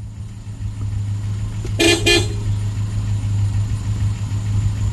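Two short vehicle-horn toots in quick succession about two seconds in, over the steady low drone of a running vehicle engine.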